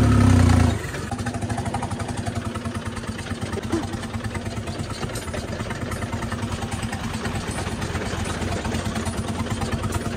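Tractor diesel engine running at a steady low speed, a rapid even chugging. A louder low sound comes in the first second.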